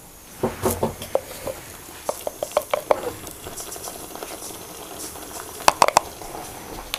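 Thick cream-based masala gravy simmering and sizzling in a pan over high flame, with scattered short bubbling pops. Two sharper clicks come near the end.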